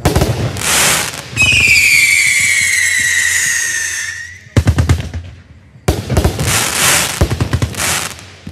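Black Cat Megatron X 33-shot heavy firework cake firing: a shot bursts with crackle, then a loud whistle falls slowly in pitch for about three seconds. A cluster of sharp bangs follows, then another stretch of crackling bursts.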